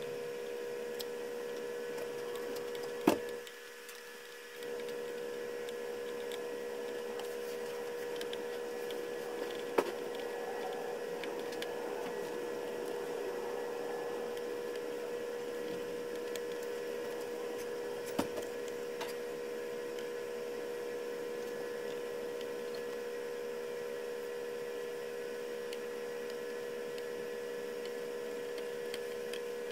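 Steady electrical hum with a few sharp clicks, about three seconds, ten seconds and eighteen seconds in.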